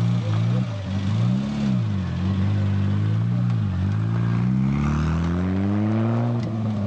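Rally hatchback's engine revving up and down in short blips, then climbing steadily in pitch as the car pulls away, with a sudden drop near the end as it shifts gear.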